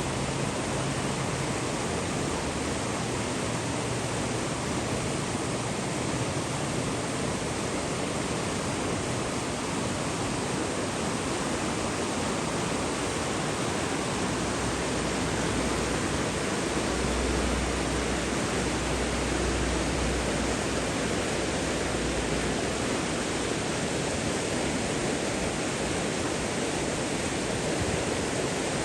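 Rushing water, a steady even hiss that goes on without a break.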